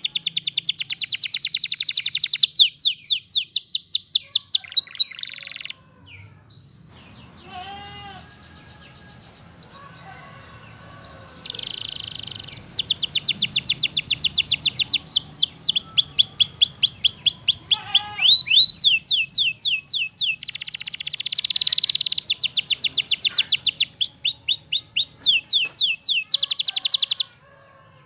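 Canary singing: long rolling trills, each a fast train of repeated high notes, changing from one note shape to the next. The song breaks off for about five seconds some six seconds in, then resumes.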